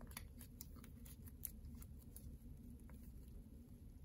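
Faint, irregular clicking and ticking of trading cards in plastic penny sleeves being flipped through by hand, over a low room hum.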